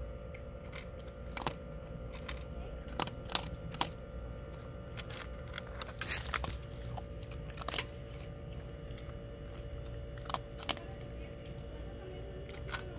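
Small dog chewing and crunching its food up close: irregular wet clicks and crunches, over a steady background hum.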